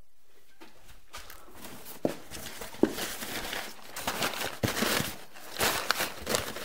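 Crumpled packing paper rustling and crinkling as it is pulled out of a cardboard box, with a few sharp knocks as the box is handled; it starts about a second in and gets busier in the second half.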